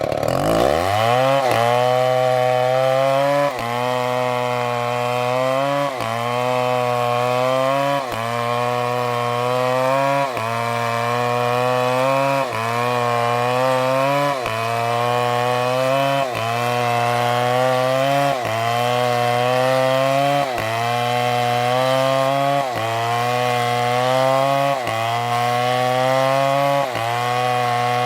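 STIHL chainsaw cutting wood. It revs up in the first second or so, then its pitch drops sharply and climbs back roughly every two seconds.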